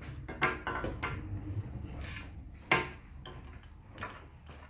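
Plastic Lego bricks being handled, giving about four short sharp clicks, the loudest a little before three seconds in.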